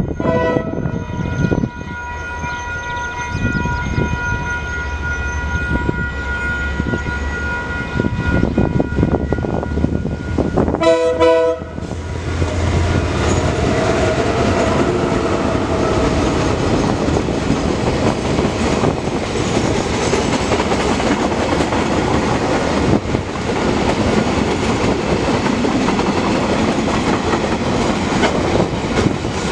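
Level crossing bells ringing steadily while a pair of KiwiRail DL-class diesel-electric locomotives approach, sounding the horn briefly at the start and again for about a second near the middle. The locomotive engines then pass close, followed by a long rake of hopper wagons rolling by with clickety-clack over the rail joints.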